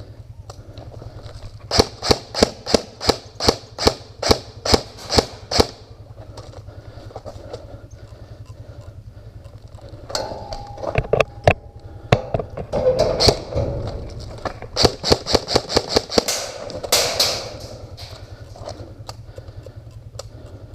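Airsoft electric guns (AEGs) firing quick single shots, about three a second for around four seconds. After a pause, more volleys and short bursts come from about halfway through, over a steady low hum.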